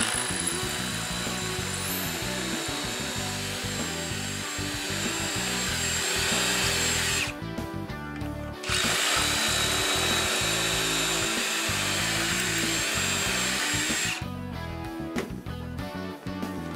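Cordless drill (Ryobi ONE+ HP brushless) boring two holes with a 3/16-inch bit through the guide bushings of a cabinet hardware jig into a wooden drawer front. One run lasts about seven seconds, then there is a short pause and a second run of about five seconds, which stops a couple of seconds before the end. Background music plays beneath.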